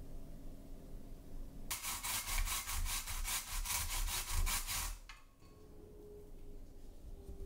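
Food being grated on a kitchen grater, most likely ginger for a ginger sauce: quick back-and-forth scraping strokes, about six a second, for about three seconds, starting a little under two seconds in.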